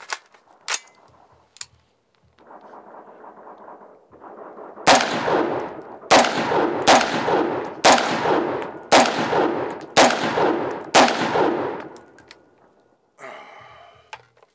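A Springfield Saint Victor .308 AR-10-pattern pistol fired semi-automatically, one-handed: a string of about eight loud shots roughly a second apart, each with a ringing echo. A few small metallic clicks of handling come before the first shot.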